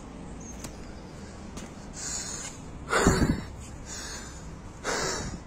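A person breathing hard and puffing. The loudest exhale comes about three seconds in and falls in pitch, and another puff follows near the end. The breathing is that of someone winded from climbing steps.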